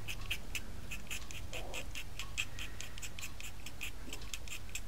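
A sharp blade scraping a stick of white Rembrandt soft pastel in quick short strokes, about five or six a second, shaving fragments of colour onto the paper.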